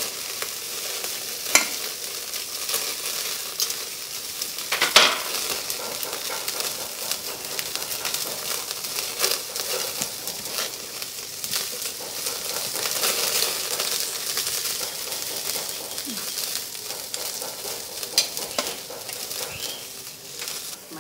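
Meat sizzling on a wire grill over glowing charcoal, a steady hiss with fat crackling and spitting throughout, and a few sharper clicks, the loudest about five seconds in.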